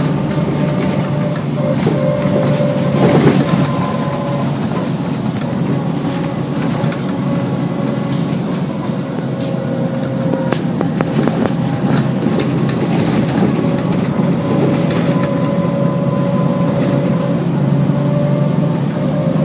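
Cummins M11 inline-six diesel engine and Allison B400R automatic transmission of a 1999 Gillig Advantage transit bus running: a steady drone with a faint whine that comes and goes. Scattered rattles and clicks run through it, with a louder clatter about three seconds in.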